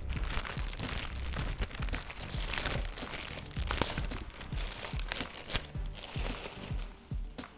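Packaging being unwrapped by hand: wrapping crinkling and rustling, with many sharp crackles.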